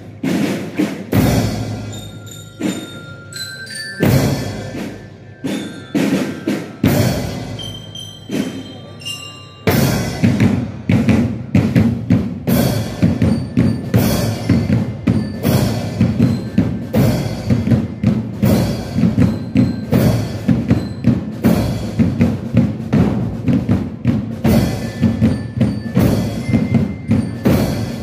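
Marching band with cymbals: slow, separate cymbal and drum strikes about a second apart, then about ten seconds in the full band comes in with a steady beat of about two strikes a second over sustained low notes.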